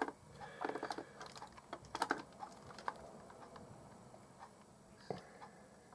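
Plastic clock-radio housing being handled and pried apart: irregular small clicks and taps, busiest in the first couple of seconds with a cluster of clicks about two seconds in, then sparser and fainter.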